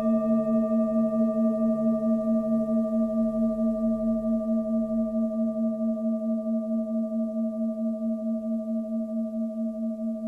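Tibetan singing bowls ringing out after a strike, several steady tones fading slowly, the lowest one pulsing with a wavering beat.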